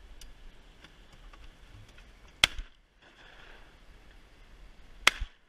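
Two shotgun shots about two and a half seconds apart, each a single sharp crack and by far the loudest thing.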